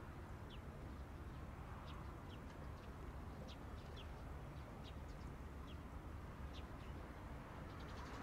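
Small birds chirping: short, high, slightly falling notes every second or so, faint over a steady low rumble of outdoor ambience.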